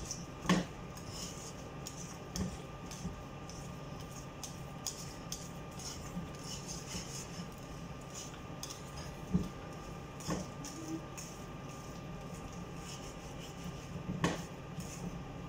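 Wire whisk stirring browned flour and hot water into a thick asida dough in a pan: a run of small scraping taps and clinks against the pan, with a few louder knocks, over a steady low hum.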